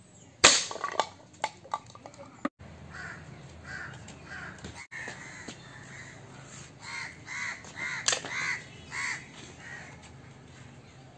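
An Indian Classic air rifle fires with a sharp, loud crack about half a second in, and a second, quieter crack comes about eight seconds in. Between them a bird gives runs of short, harsh repeated calls.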